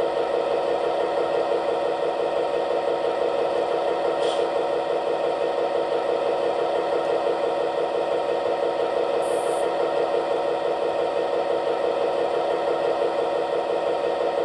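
DCC sound decoder in an Irish A class model diesel locomotive playing a diesel engine idling steadily, with a fast pulsing beat, through the model's EM1-style speaker, its sugar cube speaker removed. A faint click comes about four seconds in.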